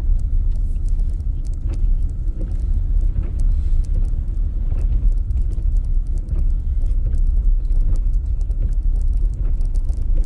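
Steady low rumble of a vehicle driving through deep snow, its engine and tyres heard from inside the vehicle.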